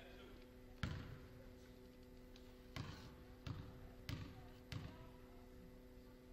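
A basketball bouncing on a hardwood gym floor, five dribbles by a player at the free-throw line before the shot. There is one bounce about a second in, then four more at an even pace about two-thirds of a second apart, each with a short echo from the hall.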